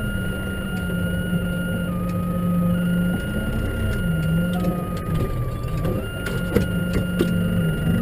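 Snow-ploughing tractor's engine running, heard from inside the cab, its speed dipping and rising a few times as it manoeuvres, with a higher whine that shifts along with it. A few sharp clicks and knocks come in the second half.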